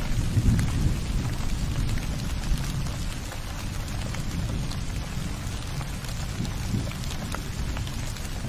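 Steady rain with many small drop ticks over a deep low rumble, loudest in the first second.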